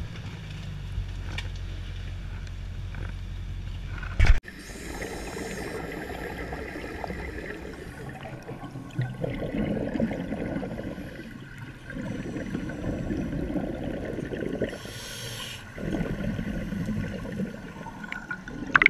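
Boat engine humming steadily, then a loud thump about four seconds in as the camera goes into the water. After that comes underwater scuba breathing: the regulator hisses on the inhales and exhaled bubbles rush and gurgle at intervals.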